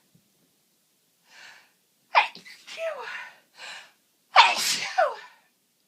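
A woman with a cold sneezes twice. Each sneeze comes after a gasping in-breath and ends in a falling voiced "choo", and the second is the louder.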